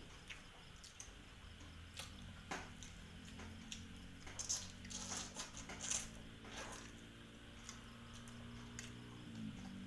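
Close-up eating sounds: wet chewing and squishing of mouthfuls of noodle soup, broken by a few sharp clicks, loudest about halfway through.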